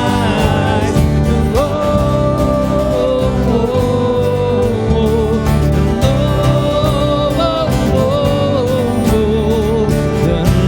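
A song with a singing voice over instrumental accompaniment.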